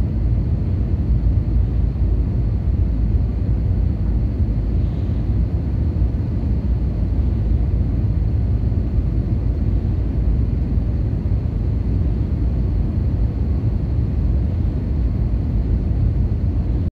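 Steady low rumble with no breaks or changes, strongest in the bass, with a faint high whine running under it.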